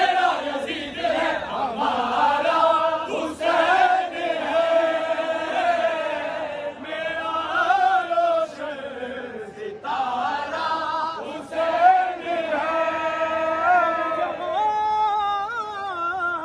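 A group of men chanting an Urdu devotional qasida together, without instruments, in long held sung lines.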